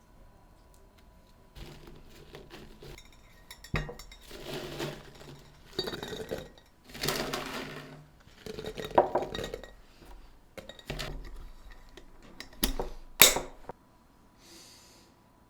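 Kitchen containers and dishes being handled and set down: a run of clinks, knocks and rustling, with several sharp clinks, the loudest near the end.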